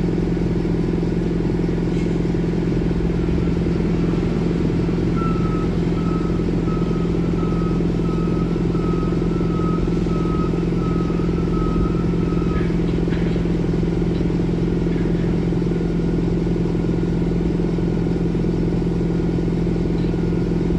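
Steady low drone of heavy container-terminal machinery at a gantry crane working a container train. About five seconds in, a warning beeper starts pulsing about twice a second and stops about seven seconds later.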